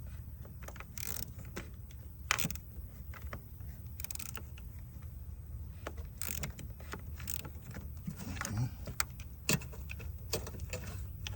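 Metal clicks and scrapes of a 13 mm wrench tightening the nut on a negative battery terminal clamp, coming at uneven intervals over a steady low hum.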